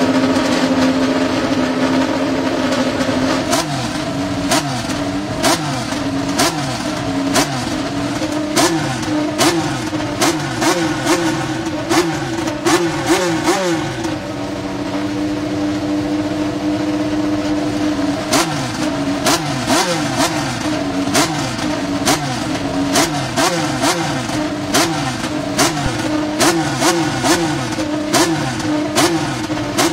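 McLaren MCL35 Formula 1 car's Renault turbocharged 1.6-litre V6 hybrid engine running on the stand. It idles at first, then is revved and released over and over, the revs rising and falling in quick succession with sharp cracks between them. About halfway through it holds a steadier speed for a few seconds.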